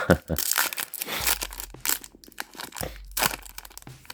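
Foil booster-pack wrappers crinkling and tearing as the packs are handled and ripped open, in quick irregular crackles.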